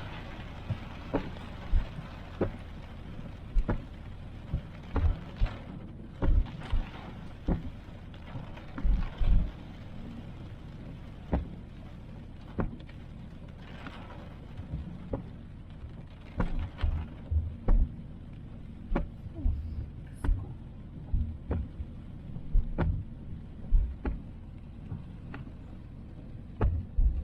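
Inside a car driving through a forest in the rain: a steady low road rumble, with frequent irregular knocks and thumps, at times one or two a second.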